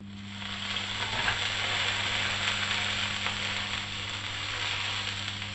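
Chicken breast topped with cheese and BBQ sauce sizzling steadily in a hot ridged cast-iron griddle pan, the sizzle swelling over the first second.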